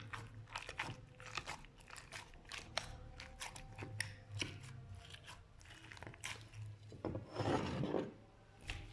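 Slime being worked, giving a close run of small crackles and pops and one longer, louder squish about seven seconds in.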